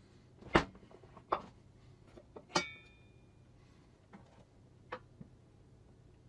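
A few sharp knocks and clicks, the loudest about half a second in. One about two and a half seconds in rings briefly like struck metal. No saw motor is running.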